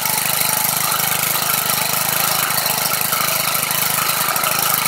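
Cub Cadet 4175 four-stroke string trimmer engine idling steadily, with no revving.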